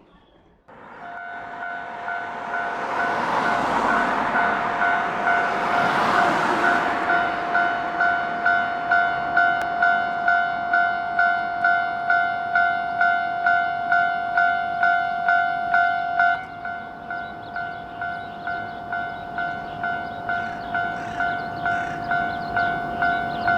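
Japanese railroad crossing alarm ringing its repeated "kan-kan" warning, about two strikes a second, warning that a train is approaching or passing. A train runs past in the first several seconds, its noise swelling and fading. The alarm drops suddenly in level about 16 seconds in and keeps ringing.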